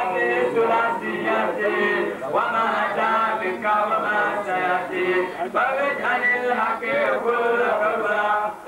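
Men's voices chanting a devotional song in Arabic, in melodic phrases that rise and fall without a break.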